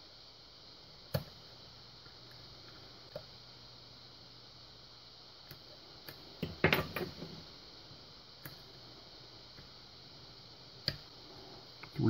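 Faint clicks and light scraping from a hook pick working the pin stack of an Abus Buffo euro cylinder under tension: a few isolated sharp clicks, with a short cluster of clicks in the middle. The single click near the end is a pin setting at the shear line.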